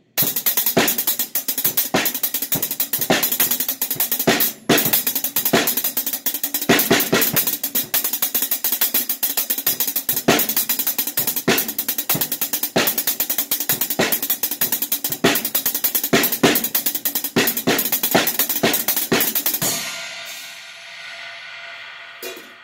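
Drum kit played in a fast, busy groove: hits on a snare drum with a coated Ambassador head and a beanbag pad lying on it, toms and crash cymbals, with a brief break about four and a half seconds in. The playing stops about twenty seconds in and the cymbals ring on, fading away.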